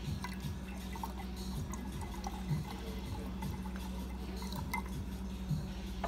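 A thin stream of water pouring from the spout of a small Yixing clay teapot into a glass pitcher, trickling and splashing, with soft background music underneath.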